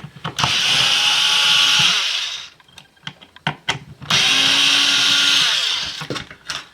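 Electric screwdriver running in two spells of about two seconds each, driving out screws to free a part, and slowing down at the end of each spell. Small clicks of handling come between the two runs.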